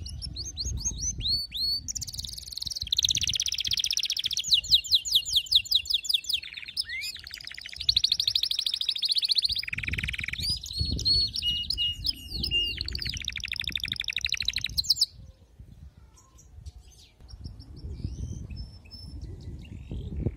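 Domestic canary singing a long, fast song of rapid trills, rolls and high sweeping notes, which stops suddenly about fifteen seconds in; only a few faint chirps follow.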